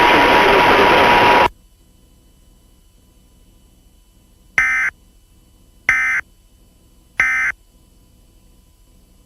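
Loud static with a steady tone running through it cuts off suddenly about a second and a half in. After a pause, an Emergency Alert System encoder sends three short, identical data bursts about a second apart: the end-of-message (NNNN) code that closes an EAS alert.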